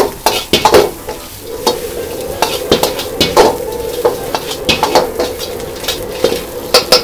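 Metal wok ladle scraping and clanking against a wok while potatoes, dried chilies and scallions are stir-fried and tossed, with the oil sizzling. The ladle strikes come irregularly, about one or two a second, over the steady sizzle.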